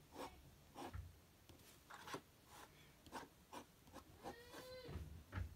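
Fine-tip ink pen scratching across paper in short, quick strokes, about a dozen faint strokes a few tenths of a second to a second apart, as spiky hair is inked in.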